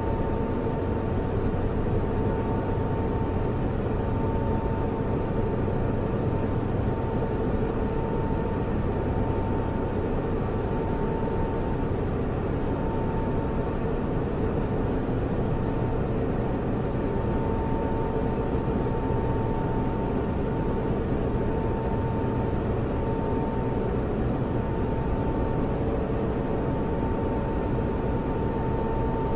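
Computer server noise: cooling fans running at a constant speed, a steady whir with a faint high tone running through it.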